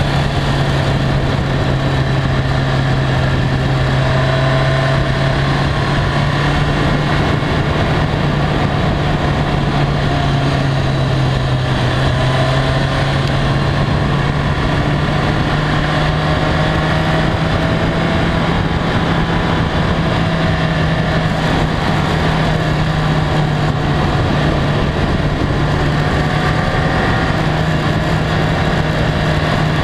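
BMW K1300R inline-four motorcycle engine running at a steady cruise, its pitch stepping up a little around the middle and then holding. Wind and road noise rush over it throughout.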